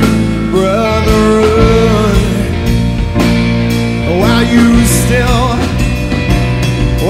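Live rock band playing an instrumental section: electric guitar lead with bent, sliding notes over drums, bass and keyboards.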